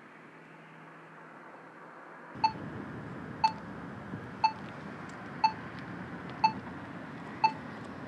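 Pedestrian crossing signal beeping evenly about once a second, each beep short and high, over a steady street hum; the beeping starts about two seconds in.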